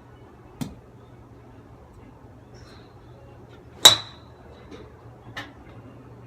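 A golf club striking a ball: one sharp, loud click with a brief ringing tone about four seconds in. Fainter clicks come about half a second in and again about five and a half seconds in.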